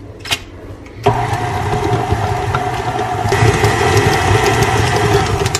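KitchenAid stand mixer motor running with its flat beater shredding cooked chicken breasts in the steel bowl. A short click comes just before it starts about a second in, and it gets louder about two-thirds of the way through.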